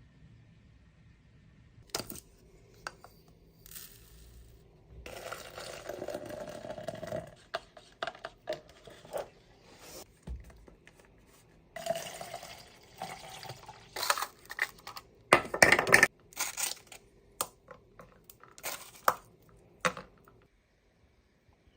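Clinks, taps and knocks of small hard objects being handled, like dishes or utensils. There are two stretches of pouring or running liquid, about five and twelve seconds in, and a cluster of louder knocks a little after the middle.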